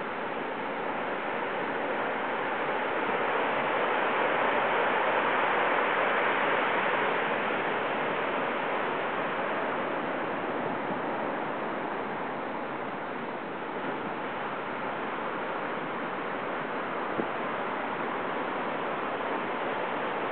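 Heavy typhoon swell breaking as surf, a continuous rushing wash of water. It swells louder a few seconds in and eases off again after about seven seconds.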